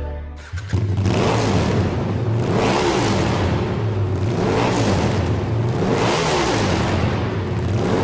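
An engine revving up and down again and again, its pitch rising and falling about every second and a half, over a low steady music drone.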